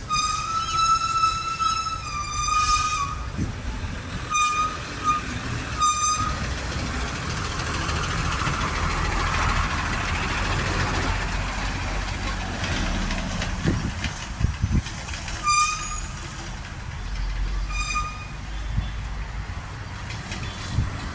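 Vehicle horns hooting in street traffic: one long hoot of about three seconds at the start, then single short toots several times, over the steady noise of passing vehicles that swells in the middle.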